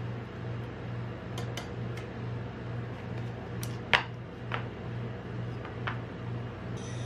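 Low pulsing hum of a rolled-ice-cream machine's cold plate, with a few sharp clicks and taps of metal spatulas against the paper cup and steel plate as the rolls are set in the cup. The loudest tap comes about four seconds in.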